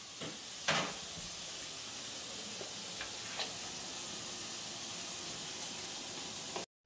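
Food sizzling in a frying pan: a steady hiss, with a sharp clink a little under a second in and a lighter one a few seconds later as a spoon works in a bowl. The sound cuts off suddenly just before the end.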